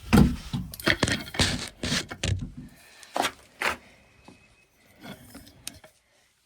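A run of clunks, knocks and scrapes as a camera is handled and moved and a door is opened. Dense for about the first two and a half seconds, then two sharp knocks, then only a few faint ones.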